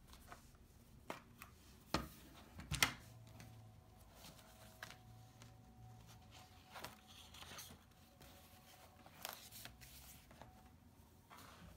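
Quiet tabletop handling: a couple of sharp clicks and knocks about two to three seconds in as a plastic watercolour palette is opened and set down, then scattered lighter taps and the rustle of sketchbook pages being turned.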